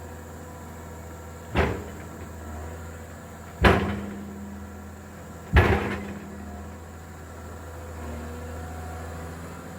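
A heavy machine's engine running steadily, with three heavy thuds about two seconds apart as soil or timber is struck or dropped during roadwork; the second and third thuds are the loudest.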